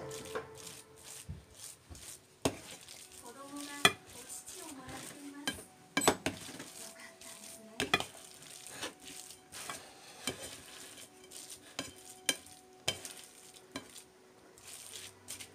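An orange plastic spatula stirring and mashing a thick mixture of mashed potato and minced meat in a large bowl, with irregular scrapes and knocks of the spatula against the bowl.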